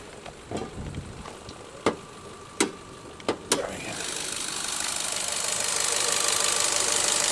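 A few sharp clicks and clunks as the hood of a 2017 Ford Fiesta SE is unlatched and raised, then the warm engine idling in the open engine bay, a steady fast ticking clatter that gets louder and holds.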